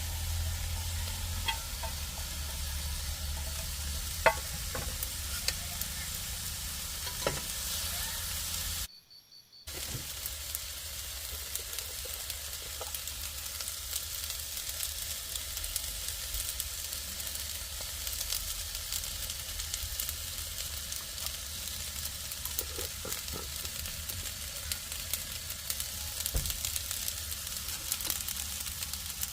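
Food sizzling and frying in a skillet on a portable camping gas stove, a steady hiss with occasional small clicks and taps. It breaks off briefly about nine seconds in.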